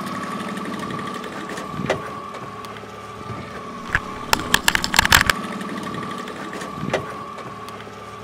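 Underwater sound of a trolling boat's outboard motor carried through the water: a steady whine over a low, evenly pulsing hum. A sharp click comes about two seconds in, a rapid cluster of clicks and rattles about four to five seconds in, and another click near the end.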